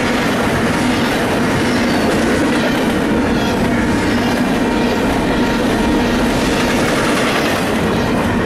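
Double-stack intermodal container train's well cars rolling past close by: a loud, steady rumble and clatter of steel wheels on rail.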